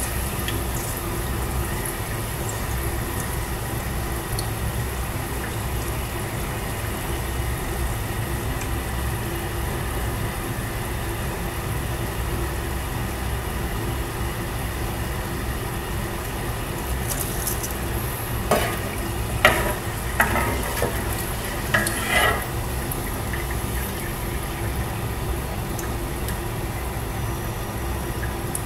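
French fries deep-frying in hot oil in a square pan on a gas burner, with a steady sizzle. Between about 18 and 22 seconds in come a few short clinks against the pan.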